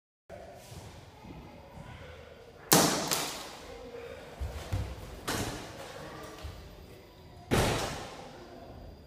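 Loud thuds and bangs echoing in a bare tiled room: a sharp one about three seconds in with a second close behind, then two more a couple of seconds apart.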